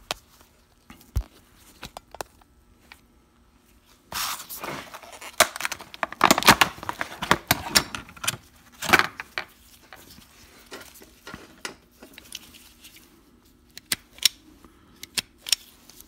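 Plastic-and-card blister packaging torn open to free a wire stripper: a few seconds of loud crackling and tearing starting about four seconds in, followed by scattered sharp clicks and clinks as the stripper is handled.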